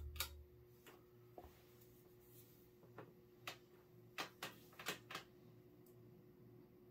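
Faint, steady motor hum of a 1999 King of Fans Explorer II ceiling fan's 153 mm motor running on high speed, with a scattering of light clicks about three to five seconds in.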